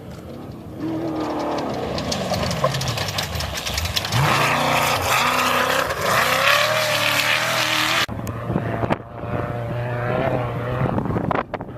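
Off-road race vehicle engines revving and passing, their pitch rising and falling. Loudest between about four and eight seconds in, where the sound cuts off suddenly, then engine sound carries on at a lower level.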